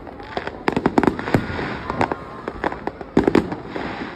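Aerial fireworks bursting: a rapid series of sharp bangs, densest about a second in and again about three seconds in.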